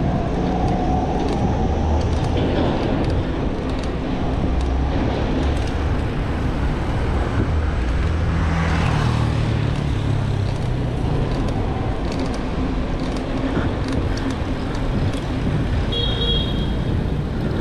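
Busy road traffic: motor vehicles running and passing, one louder vehicle going by about halfway through, and a brief high-pitched beep near the end.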